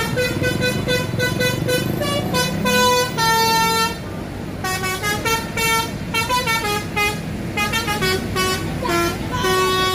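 Tourist bus's 'telolet basuri' melody horn playing a quick tune of short honked notes, with a couple of longer held notes, over a low engine rumble.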